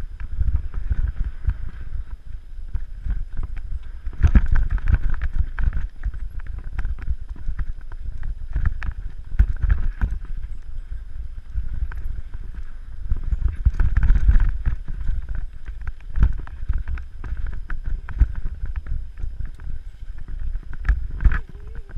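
Wind rushing over the microphone during a fast ride over rough ground, with many irregular knocks and rattles.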